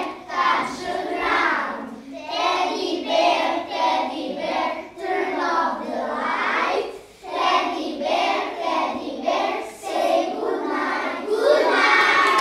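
A group of young children singing a song together in phrases, with an accordion playing along underneath.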